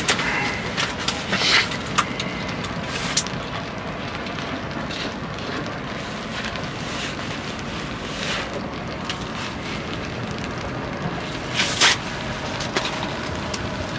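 Steady rushing background noise, like wind or distant traffic, with a few sharp clicks and knocks: a pair in the first few seconds and a louder one near the end.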